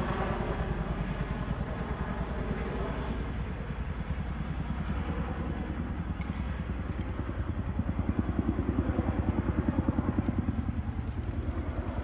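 Boeing Chinook tandem-rotor helicopter flying past, its rotor blades beating in a fast, even thudding pulse. The beat dips slightly a few seconds in and grows louder again about two-thirds of the way through.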